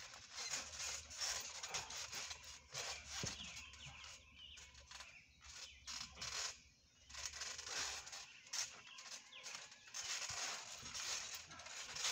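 Scuffling on a trampoline mat: bodies thumping, sliding and rustling on the fabric in uneven bursts with short pauses.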